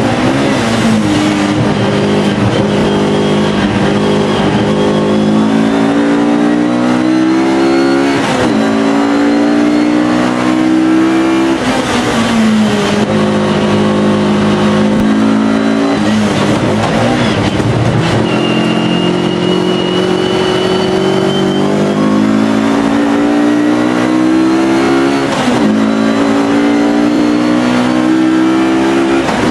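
Alfa Romeo race car engine under hard acceleration on track. Its pitch climbs over several seconds and then drops sharply at each gear change or braking point, about five times.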